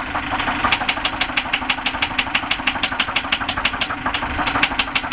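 Hyundai Elantra 2.0-litre four-cylinder engine running steadily with a loud, regular lower-end rod knock, about five or six sharp knocks a second. The knock comes from a spun number-two connecting-rod bearing that has scored the crankshaft.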